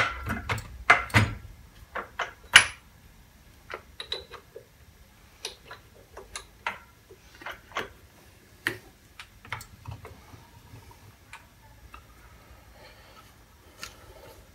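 Scattered metal clicks and knocks of tooling being handled on a mill-drill while a chuck and tap are fitted for power tapping, the loudest knocks in the first few seconds; the spindle motor is not running.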